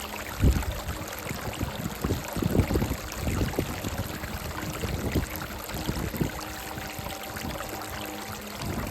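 Brook running over rocks: a steady rush of water with several low thumps in the first half. A soft held melody sounds faintly underneath.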